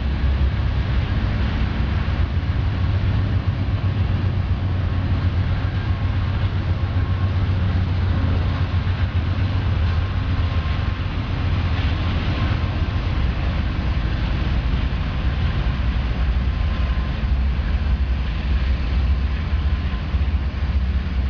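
Steady low rumble of a passenger train and locomotives moving through a rail yard.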